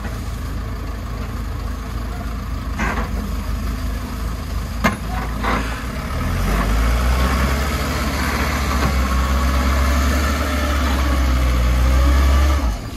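Dump truck engine running, then pulling harder and louder from about six seconds in as the loaded truck drives out of the rubble with an excavator shoving it from behind. A few sharp knocks come before that.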